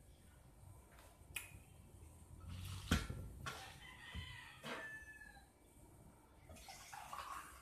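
A rooster crowing once, about four seconds in. A few soft knocks and clicks come from things handled on a table, the loudest a knock about three seconds in.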